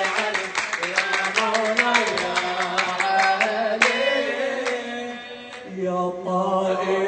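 A man's voice chanting a Husseini religious elegy into a microphone, with sharp rhythmic beats under the singing for the first four seconds or so. After a brief dip he holds a long, steady sung note near the end.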